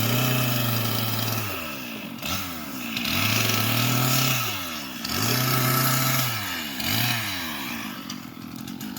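Chainsaw cutting firewood, revved up and held in the cut five times, two of them short blips and the others held for one to two seconds, each dropping back between cuts. It settles down near the end.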